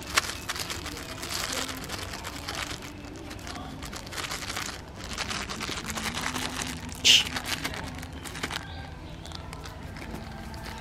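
Rustling and crackling with many small clicks, with a short, sharp, high squeak about seven seconds in.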